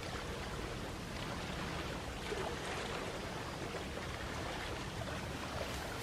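Small sea waves lapping and washing on the shore in a steady, even wash, with a few light splashes.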